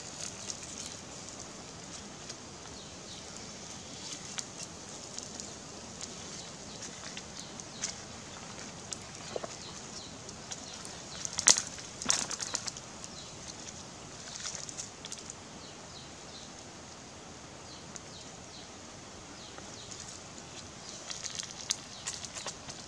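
Small wood fire crackling under a catfish grilled on sticks, with scattered sharp pops and clicks over a steady hiss. A louder cluster of clicks comes about halfway through, and more near the end.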